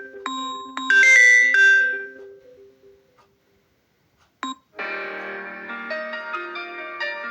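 Samsung Galaxy M32 ringtones. A bright chiming ringtone phrase plays again and fades out about three seconds in. After a brief silence and a short blip, a different ringtone starts: a keyboard-like melody with a steady run of notes.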